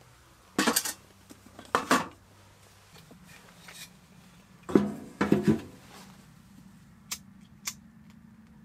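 Split firewood knocking and clattering against the metal of a wood-burning tent stove as pieces are fed in through its round door. The knocks come in three groups, loudest about five seconds in, followed by two light clicks near the end.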